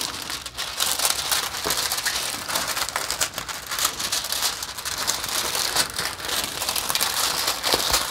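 Clear plastic cover film on a diamond painting canvas crinkling and crackling continuously as a hand presses and smooths the canvas flat.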